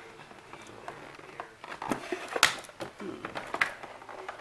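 Hands handling the drone's box and packaging: a few sharp knocks and clicks with light rustling, the loudest knock about two and a half seconds in.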